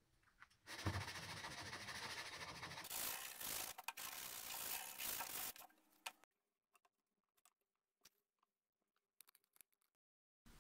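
A notched MDF panel being handled on a workbench: rubbing and knocking of the board for a few seconds, then only faint scattered clicks.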